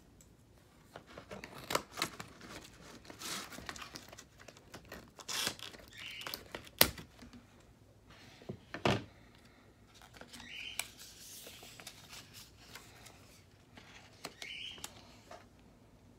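Iron-on vinyl and a cutting mat being handled on a tabletop: irregular rustles, crinkles and taps, with a sharp click about seven seconds in.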